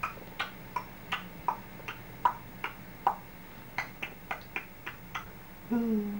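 A person clicking their tongue in a quick, uneven series, about three clicks a second, the pitch of each click shifting, with a short pause in the middle. Near the end comes a brief hummed voice sound.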